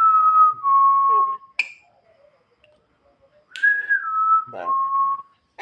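A clear whistled phrase, falling in steps from a higher note to two lower held notes, heard twice. A sharp click comes between the two phrases, and a short rough huff comes under the second phrase, about four and a half seconds in.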